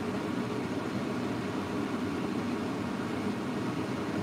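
A steady low rushing noise with no distinct events.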